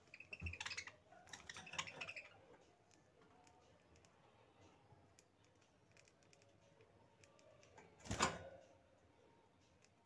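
Caged budgerigars chirping briefly in the first two seconds, then faint scattered clicks. A single sharp knock about eight seconds in is the loudest sound.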